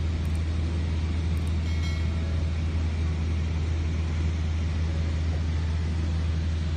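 Steady low drone of a light single-engine propeller aircraft in flight, heard from inside the cabin.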